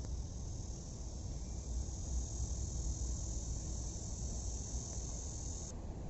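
Insects singing in a steady, high-pitched continuous chorus over a low rumble; the insect sound cuts off suddenly near the end.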